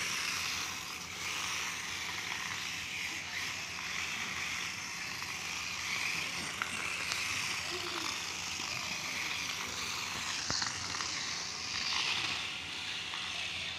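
Small battery-powered toy race car's electric motors and gears whirring as it drives and turns across a tiled floor, rising and falling as it moves, with one sharp click late on.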